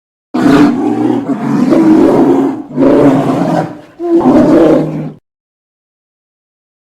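Cartoon polar bear sound effect: a bear roaring three times in quick succession, the first roar the longest, then cutting off.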